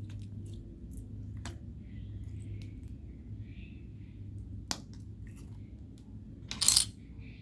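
Homemade slime being handled and mixed: scattered small clicks and pops, a sharper click a little past halfway, and a louder short crackling burst near the end, over a steady low hum.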